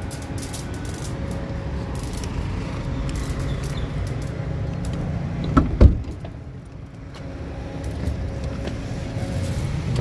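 Steady low rumble of traffic and engines, then a car door shut with two quick thumps a little past halfway through. After that the rumble is muffled for a moment, as heard from inside the closed car, and then slowly grows again.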